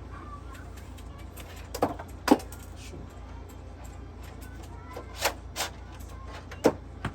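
Irregular sharp clicks and knocks from objects being handled, about six in all, two of them louder, over a steady low hum.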